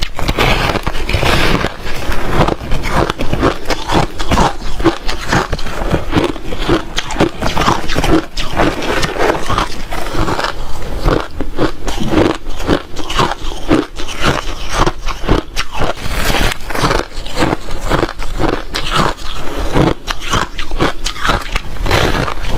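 Ice chips being bitten and chewed close to the microphone: a continuous run of loud, irregular crunches and crackles.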